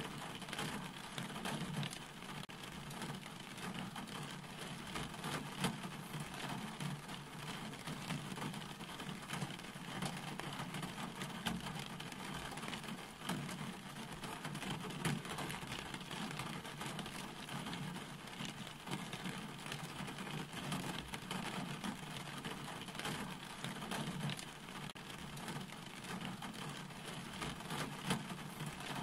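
Steady rain falling, with many individual drops ticking sharply close by over an even hiss.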